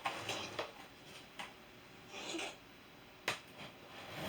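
Faint rustling and handling of packaging being opened, with a soft click about a second in and a sharp click or snap about three seconds in.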